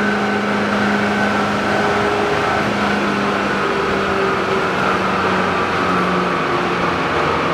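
Monarch Model 613 toolroom lathe running under power, its headstock gearing and spindle giving a steady whine of several held tones that slowly drift a little lower in pitch.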